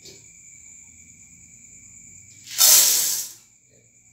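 Corn kernels poured from a cup into a popcorn machine's metal kettle: a rushing, grainy hiss lasting about a second, starting about two and a half seconds in.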